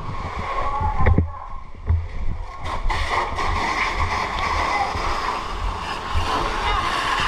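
Steady rushing of water spraying from a fire hose, growing denser about halfway through, over a low rumble, with voices shouting in the background.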